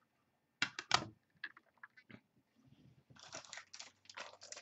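Scattered light clicks and taps, two sharper ones about a second in, then a quicker run of small clicks near the end.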